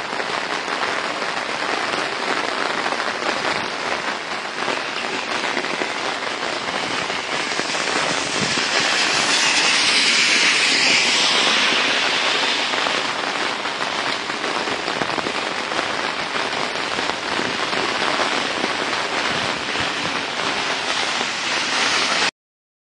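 Heavy rain falling steadily on pavement, grass and trees, an even wet hiss. It swells louder for a few seconds midway and stops abruptly near the end.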